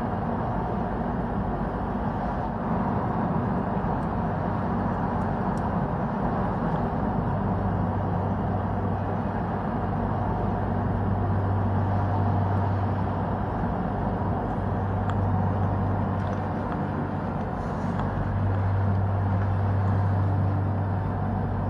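Steady vehicle rumble with a low hum that grows stronger about eight seconds in.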